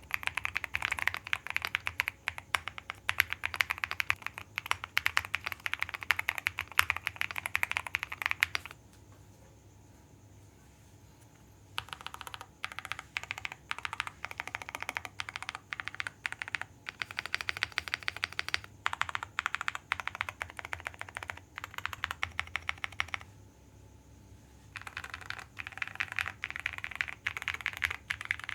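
Typing on a QK100 custom mechanical keyboard with lubed Boba U4T tactile switches, a polycarbonate plate and JKDK Chemistry keycaps. Fast continuous keystrokes, then a pause of about three seconds, then slower, scattered keystrokes, another short pause, and fast typing again near the end.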